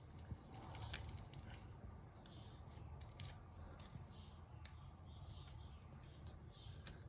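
Faint, scattered light clicks and taps, with a few short high-pitched sounds a second or so apart.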